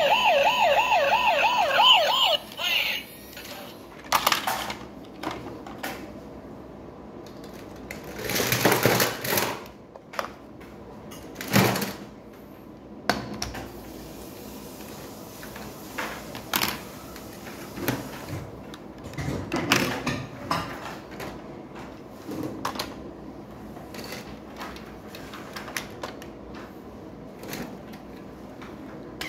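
A battery-powered toy ambulance siren warbles fast, about four wails a second, and cuts off about three seconds in. After that, plastic toy vehicles clack, knock and scrape as they are set down and moved about on a marble table.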